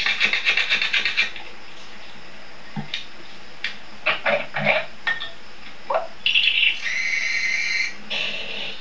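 Baking-prep sounds heard through a TV speaker. About eight quick scraping strokes a second at the start, as cake flour is sifted through a sieve into a glass bowl of egg yolks. Then scattered clicks and scrapes of utensils on the glass, and a brief steady whir about a second before the end.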